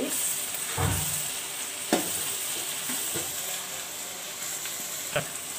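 Chopped onions and ginger-garlic paste sizzling steadily in hot oil in a metal kadai while a metal spatula stirs them. The spatula scrapes and knocks against the pan three times.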